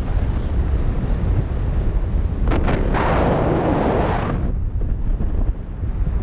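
Wind buffeting the microphone of a paraglider pilot's harness-mounted camera in flight, a steady low rumble. About two and a half seconds in, a louder rushing noise rises sharply for about two seconds, then drops back.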